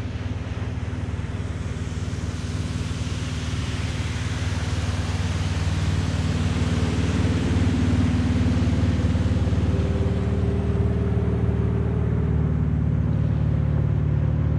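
A motor engine running steadily with a low, even hum. It grows louder over the first eight seconds as it comes closer, then holds. It is a machine that keeps passing back and forth.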